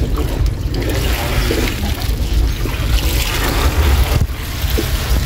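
Water splashing and sloshing, with a heavy low rumble underneath.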